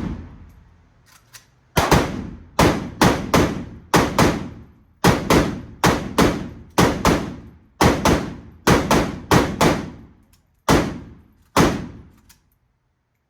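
Rifle shots in 7.62x51mm fired in quick strings, about twenty shots over some eleven seconds, each with a short echoing tail. The shots stop a little after twelve seconds in.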